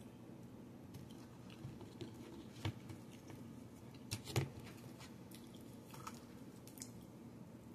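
A person chewing a mouthful of soft canned ravioli, faint and wet, with a few sharp light clicks; the loudest comes about four seconds in.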